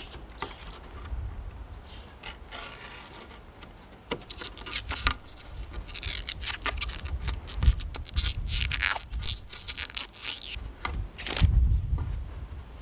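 Rubbery Plastidip coating being peeled and rubbed off a hard plastic RC truck body shell: a run of rubbing and scraping strokes with sharp plastic clicks, busiest from about four seconds in.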